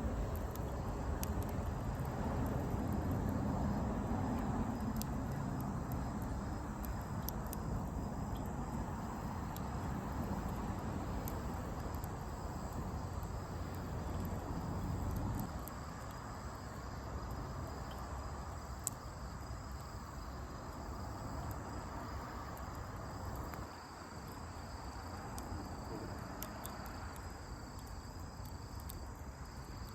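Outdoor night ambience: insects trilling steadily on one high note, with a campfire crackling in faint scattered pops and a low rumble underneath that eases off about halfway through.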